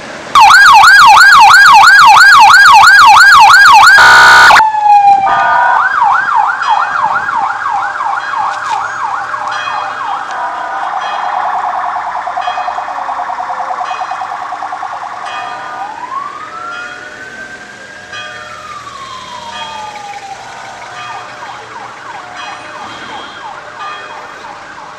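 Electronic vehicle siren: a fast yelp, very loud and distorted for the first four seconds, yelping again from about five seconds in, then one slow rising and falling wail, and the fast yelp returning near the end.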